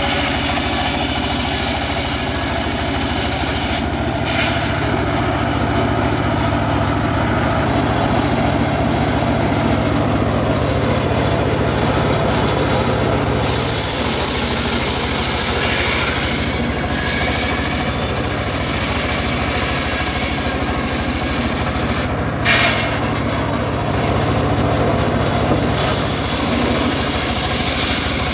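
Engine-driven circular saw of a homemade trailer sawmill running steadily as it rips a sengon log lengthwise. The high, hissing part of the sound drops away twice and returns as the cuts change. A single short knock comes about 22 seconds in.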